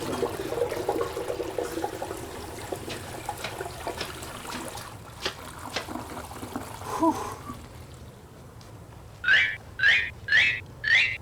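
A toilet flushing: rushing water, loudest at the start, dies away over about five seconds. Near the end come four short, loud, high-pitched sounds in quick succession.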